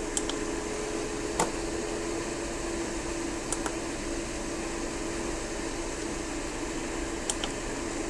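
Steady electrical hum from a vibrating-reed frequency meter and its audio transformer, driven by a signal generator at around 410–420 Hz; a second, higher tone fades out about two seconds in as the frequency is turned down. A few faint clicks come from the generator's knob and buttons.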